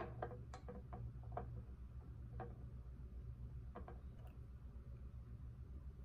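Light, sharp clicks of flat glass beads knocking against a glass jar and a glass tabletop as they are handled and pressed on, several in quick succession at first and a few scattered ones later, over a steady low hum.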